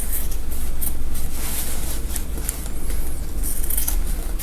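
Small snips and scrapes of threads being cut while a gown's seams are picked apart, as short scattered clicks over a steady low hum.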